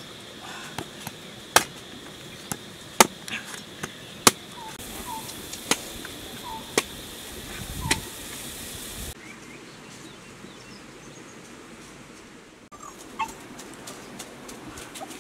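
A series of sharp knocks, six of them about a second apart, with a few faint short chirps between them. About nine seconds in, the sound changes abruptly and grows quieter.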